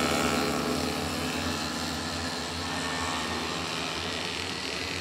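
Several derny pacing motorbikes running steadily as a group, their small engines passing close and then fading gradually as they move off around the track.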